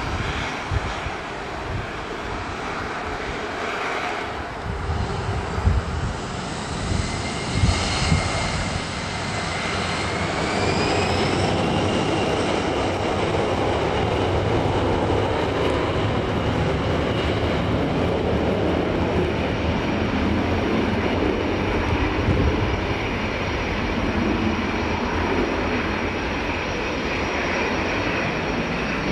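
Boeing 737-400 CFM56 turbofan engines spooling up, with a rising whine about eight to eleven seconds in. The engines then run with a steady, louder jet noise at takeoff power as the airliner starts its takeoff roll.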